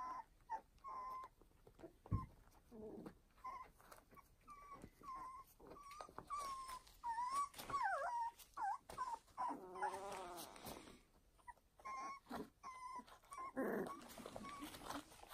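Young puppies whimpering and squeaking: many short, high whines, some wavering up and down, with one longer, fuller cry about ten seconds in.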